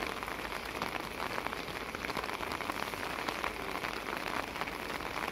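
Steady rain pattering close to the microphone, a continuous hiss dotted with many small drop ticks.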